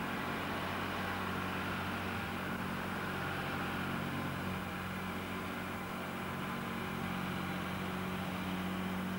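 Steady low engine hum of heavy earth-moving machinery running at a constant pace, with no change in pitch or level.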